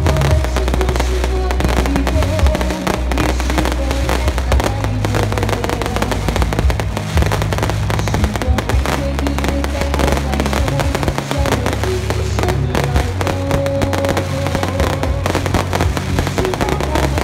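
Aerial fireworks bursting and crackling densely and without a break. Loud music with a heavy, steady bass plays under them.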